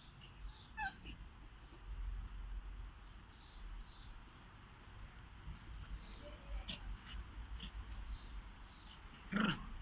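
Bichon puppy squeaking at play: a string of short, high, falling squeaks with light clicks, then a louder yelp or bark near the end.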